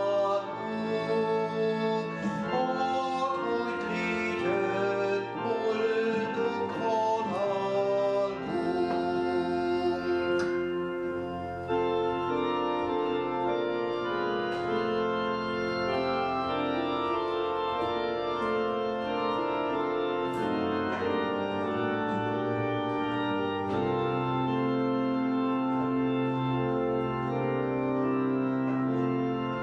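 Two-manual organ with pedal bass playing a hymn. About twelve seconds in the music breaks, and the organ continues with slow, sustained full chords.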